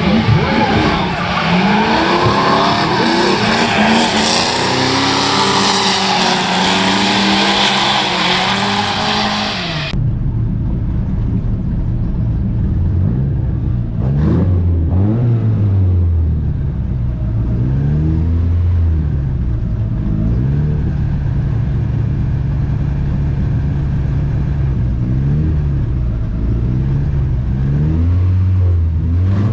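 For about ten seconds, a drift car slides through a corner, its engine revving up and down over tyre squeal. Then, after a sudden change, the turbocharged Mazda Miata's four-cylinder engine idles with repeated throttle blips, its pitch rising and falling, while staged at the start line.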